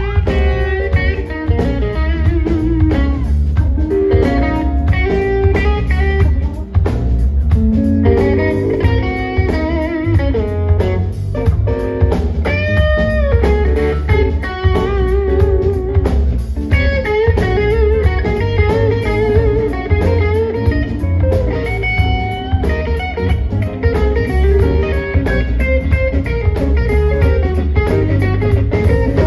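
Live blues band playing, with an electric guitar taking the lead in bent, sliding notes over bass guitar and drums.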